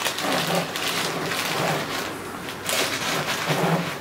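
Plastic bag crinkling and rustling in irregular bursts as a foam filter sponge wrapped in it is handled and pushed into a glass aquarium's filter chamber.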